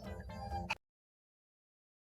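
Background music that cuts off abruptly about three-quarters of a second in, leaving dead silence.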